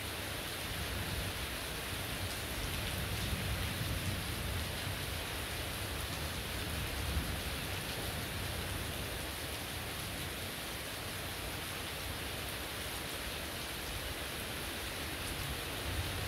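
Heavy rain falling steadily, an even hiss of drops splashing on the ground and on the surfaces around. A low rumble swells and fades under it in the first half, with a brief peak about 7 seconds in.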